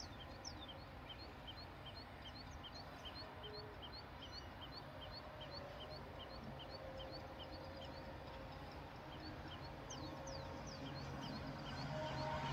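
A bird repeating a short high chirp, about two a second, over a faint outdoor hiss. Near the end a low rumble starts to grow as a train approaches.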